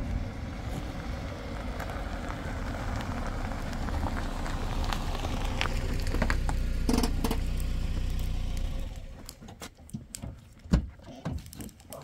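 Peugeot Pars sedan driving slowly up over gravel and stopping, its engine running with a low, steady sound. The engine cuts off about nine seconds in, followed by a few sharp clicks and knocks.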